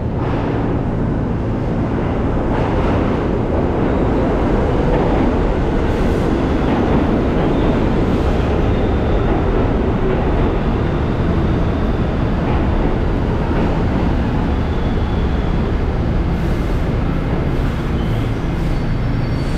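New York City subway train of R68 cars running alongside the platform: a loud, steady rumble of steel wheels on rail, with a few faint brief squeals.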